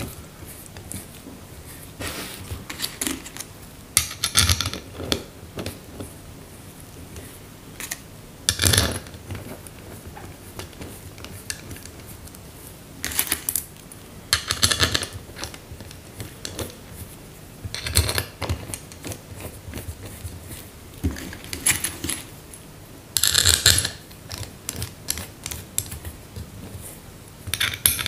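Small metal parts clinking and clattering in short irregular bursts: bolts and a metal cover being handled and fitted onto an LPG gas reducer during reassembly.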